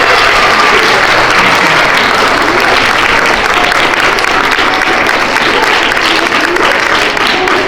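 Assembly audience of students clapping loudly and steadily.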